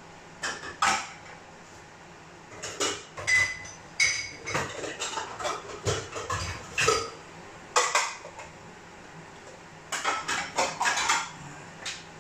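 Dishes and utensils clattering and clinking as washed pieces are handled at the sink and set into a dish-drying rack. The knocks come in irregular bursts with short pauses, a few of them ringing briefly.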